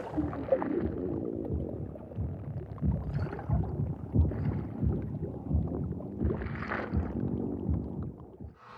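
Film sound design of a fleshy body interior: a low, wet rumbling with irregular soft squelches, swelling just after three seconds in and again between six and seven seconds.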